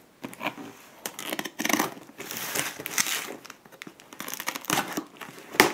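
A knife blade slitting the packing tape along a cardboard shipping box, with scraping, crinkling and tearing of tape and cardboard in irregular strokes, and one sharp click near the end.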